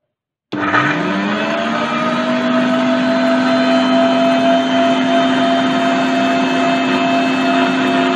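Countertop blender motor switching on about half a second in, spinning up quickly in pitch, then running steadily at speed as it chops ginger, shallots and garlic into a paste.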